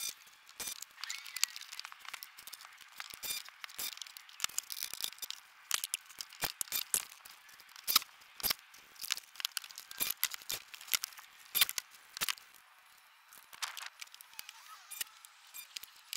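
A quick, irregular run of sharp, thin clicks and taps, several a second, with a short quieter stretch about three-quarters of the way through.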